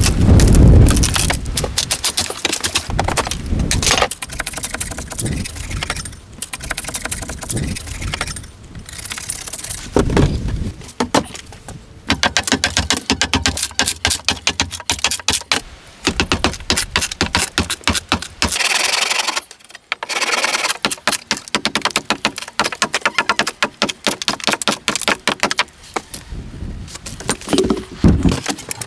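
Building and restoration work on a log cabin: a dense run of rapid clicks, knocks and rattles, with heavier thumps near the start, about ten seconds in and near the end.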